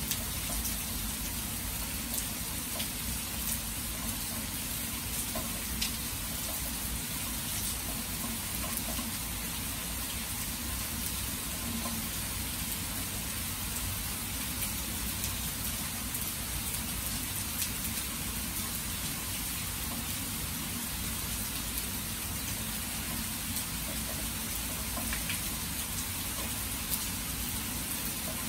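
Steady rain falling, a constant even hiss with scattered drop ticks.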